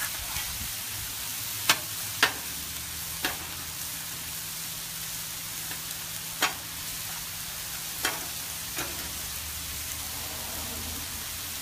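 Chicken and vegetables sizzling steadily on a hot Blackstone steel griddle while a metal spatula turns cubed zucchini and squash, with about six sharp clinks of the spatula striking the steel cooktop in the first nine seconds.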